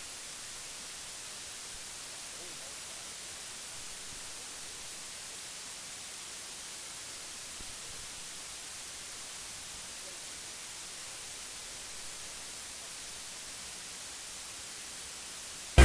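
Steady, even hiss of static with nothing else over it.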